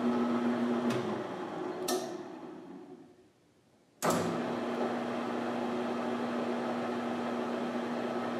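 Metal lathe tapping a copper rod with a 1/4-20 spiral-flute bottoming tap: a steady motor hum, a click about a second in, then the hum winds down to near silence. About four seconds in it starts again sharply and runs steadily.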